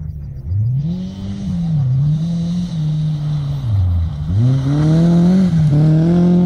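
Rally car engine revving up and down hard as the car approaches on a dirt road and slides past close by. Its pitch climbs and falls several times, with a deep drop about four seconds in before it pulls up again. The tyres throw gravel and dirt, heard as a hiss under the engine.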